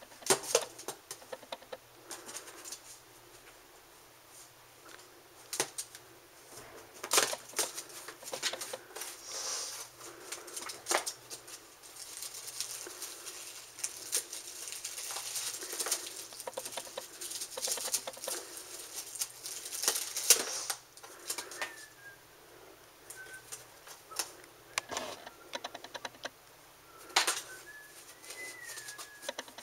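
A kitten pawing and scratching at a corrugated cardboard scratcher box, reaching into the hole in its side: irregular bursts of scraping and tapping on the cardboard, some in quick clusters.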